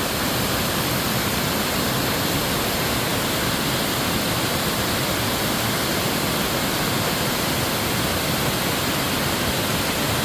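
Waterfall in a mountain stream pouring steadily: a dense, even rush of falling water with no change in level.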